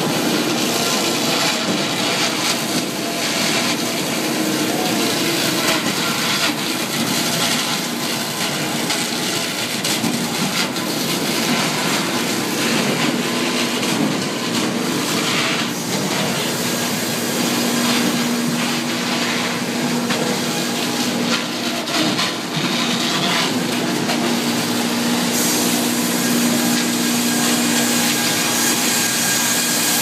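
Hardwood sawmill machinery running: a continuous loud mechanical din of conveyors and log-handling and sawing equipment. A steady hum joins it a little past halfway.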